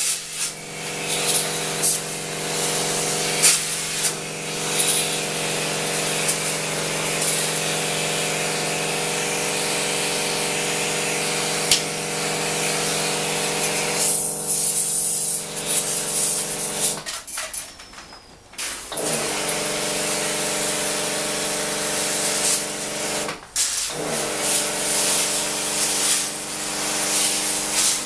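Electric pressure washer running with a steady motor hum while water hisses out of the spray lance. The spray stops twice, for about a second and a half partway through and briefly again a few seconds later, with the motor pitch sliding back up each time it restarts.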